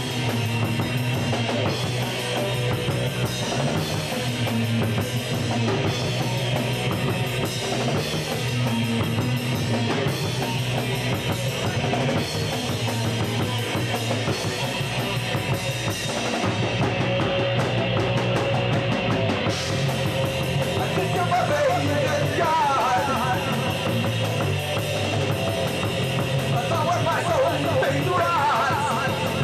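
Live rock band playing loud and hard: electric guitars and a pounding drum kit, heard from among the audience.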